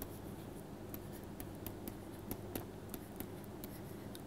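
Pen stylus tapping and scratching on a tablet surface during handwriting: faint, irregular small clicks over a low steady hum.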